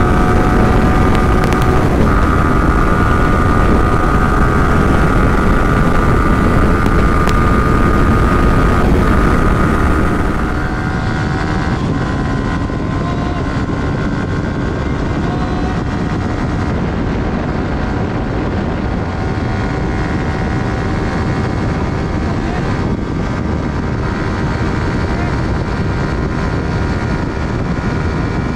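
Yamaha R15 V3's 155 cc single-cylinder engine at high revs under hard acceleration, with heavy wind rush. Its note climbs steadily and dips briefly at upshifts about 2 and 9 seconds in. About 10 seconds in the sound drops to a quieter, steadier drone with wind noise.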